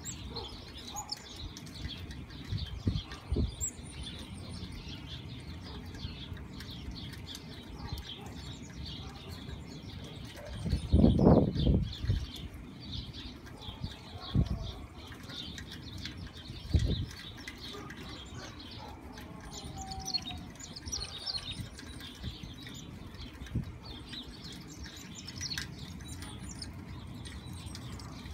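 Mountain chickadees calling over and over with short high chips and notes. Several low whooshes cut in, the loudest lasting about a second, about eleven seconds in.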